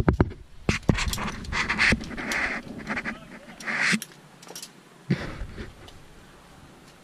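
Climbing gear clinking and rattling: aluminium carabiners and other hardware on a trad rack, knocking together as they are handled, with short rasping noises in between. The clicks come thick over the first four seconds, and a few more come about five seconds in.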